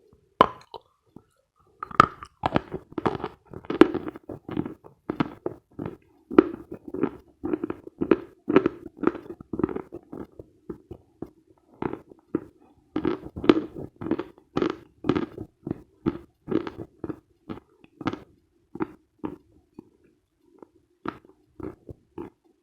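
Close-miked chewing of dense, dry Khrapovsky chalk: a steady run of crisp crunches, about two to three a second. They pause briefly about a second and a half in and thin out near the end.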